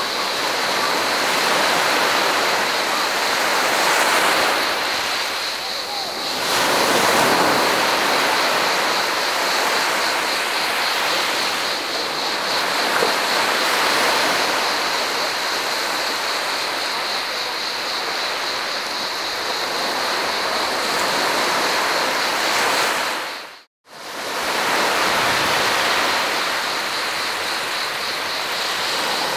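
Small sea waves breaking and washing up over sand, swelling and easing every few seconds, with cicadas buzzing steadily in the background. About two-thirds of the way through, all sound drops out for a moment and then comes back.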